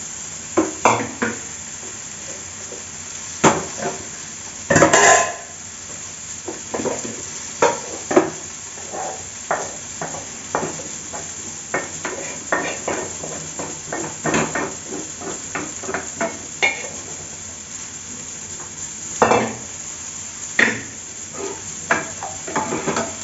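A wooden spatula knocks and scrapes in a kadai as a tomato tempering is stirred and then tipped and scraped into a pot of dal, over a steady sizzle of frying. There are irregular sharp clacks throughout and a longer clatter about five seconds in.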